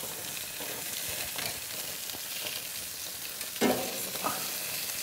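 Burgers, sausages and chicken sizzling on a hot barbecue grill, a steady crackling hiss. Light clicks of tongs against the grates sound now and then, with a louder knock about three and a half seconds in.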